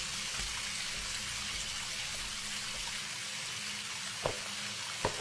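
Steady faint hiss with a low hum underneath, and a short soft click about four seconds in.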